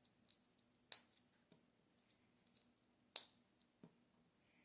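Plastic Lego bricks clicking and tapping as they are handled and pressed together: two sharp clicks about a second in and about three seconds in, with a few fainter ticks between.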